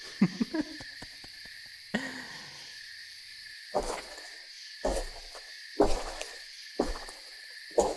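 Night woodland ambience sound effect: a steady insect chorus with a few short low calls near the start. From about four seconds in, footsteps on leafy ground come about once a second.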